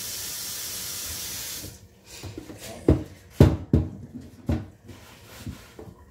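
Kitchen tap running steadily, shut off suddenly less than two seconds in, followed by a handful of sharp knocks and clatters of kitchenware being handled.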